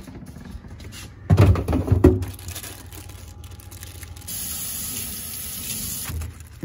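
Loud knocks and clatter about a second and a half in. Then a tap runs into a stainless steel sink in a steady hiss for about two seconds near the end.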